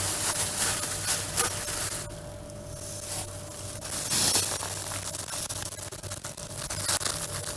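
Thin plastic freezer bag full of frozen tomato slices crinkling and rustling as it is handled while the air is drawn out of it through a drinking straw, with a steady airy hiss throughout.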